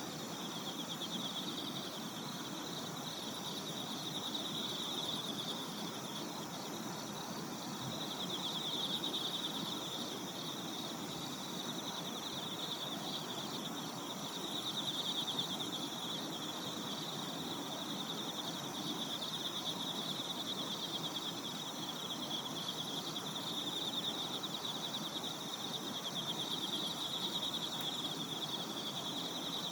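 Insects trilling in a steady, high-pitched chorus with a fast pulse, swelling and fading every few seconds, over a low steady rush.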